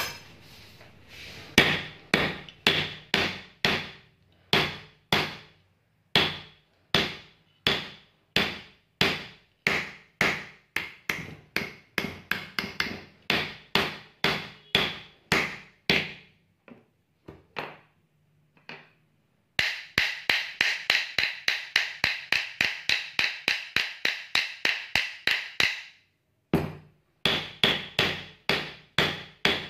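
A hammer tapping around the rim of a ceiling fan motor's metal end cover to seat it on the body, each blow a sharp ringing metallic knock. The blows come about two a second, pause briefly, then speed up to a quick run of about four a second before slowing again.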